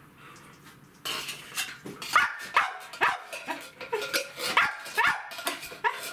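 Cavalier King Charles spaniel barking for its food at feeding time: a run of sharp, high yaps, about two a second, starting about a second in.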